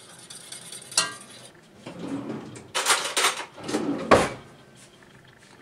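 Kitchen utensil clatter: one metal clink with a short ring about a second in, then two short spells of rattling and knocking, the second ending in a sharp knock.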